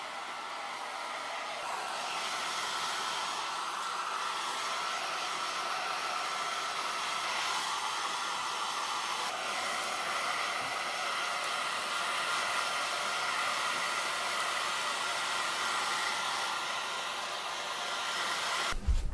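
Handheld hair dryer blowing steadily: a continuous rush of air with a faint steady whine through it. It stops shortly before the end.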